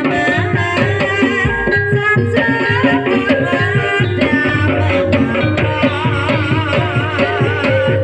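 Javanese gamelan music for an ebeg dance, with quick hand-drum strokes on the kendang over ringing bronze kettle gongs. A wavering high melody runs through the second half.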